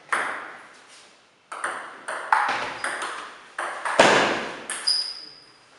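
Table tennis rally: the celluloid ball clicking off rackets and the table, about nine sharp hits at an uneven pace, the loudest about four seconds in. A brief high squeak near the end.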